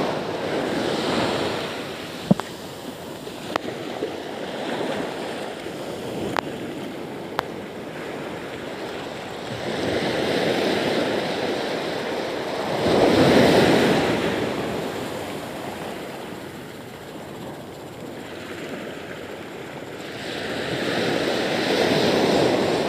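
Small waves breaking on the beach and washing up the sand. They swell and fade every several seconds and are loudest about thirteen seconds in. A few short clicks come in the first several seconds.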